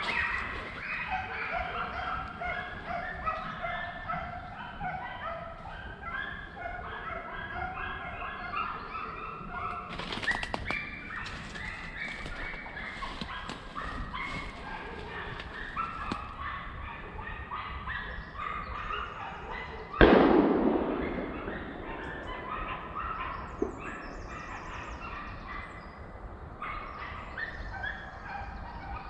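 A pack of hunting hounds baying and yelping together, many voices overlapping, busiest in the first third. About twenty seconds in, a single loud gunshot cracks out and echoes away over a couple of seconds.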